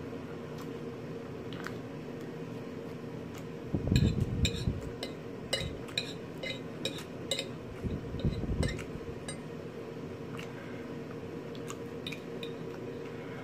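Metal fork clicking and scraping against a ceramic plate while picking up salad, the clinks coming in a quick run from about four to seven and a half seconds in, with chewing around the same time. A steady hum runs underneath.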